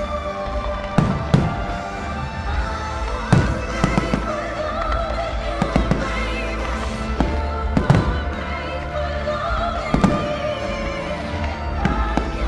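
Aerial fireworks shells bursting, sharp bangs every second or two, heard over the show's accompanying music.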